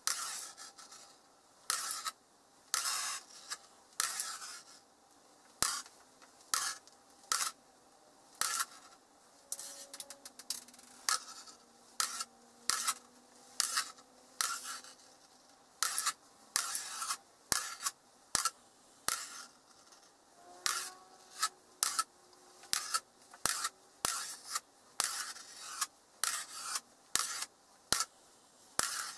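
Small magnetic metal balls clicking and clattering as they land one after another on a hard surface and snap onto each other, some rolling briefly before they catch. The clicks come about one or two a second, unevenly spaced.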